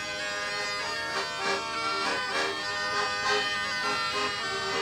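Instrumental music: held notes with a melody moving over them.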